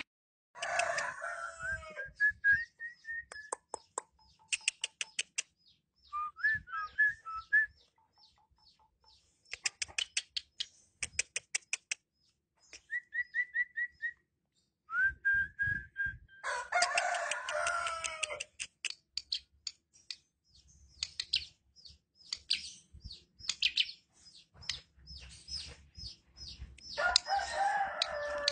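Male Asian pied starling (jalak suren) singing a varied song of rapid clicking rattles, short whistled notes and harsh, scratchy chattering phrases, in bouts with short pauses between them. The loudest harsh phrases come shortly after the start, in the middle and near the end.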